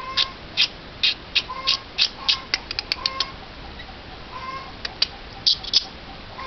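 Eurasian jay making a run of short sharp clicks, quick and dense for about three seconds, then a few scattered clicks near the end. A short soft note repeats about every second and a half behind them.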